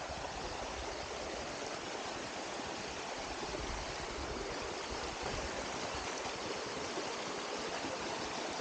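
Steady rush of running water from a mountain stream, even and unbroken, over an uneven low rumble.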